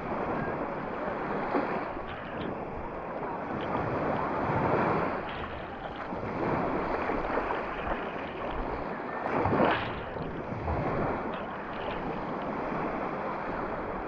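Small sea waves breaking and washing up over sand at the water's edge, swelling and easing every couple of seconds, with a louder splash of water about two-thirds through.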